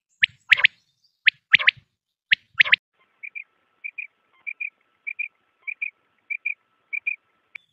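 Quail calling: loud, sharp rising notes in quick groups of two or three, then a steady run of softer paired notes, about one and a half pairs a second.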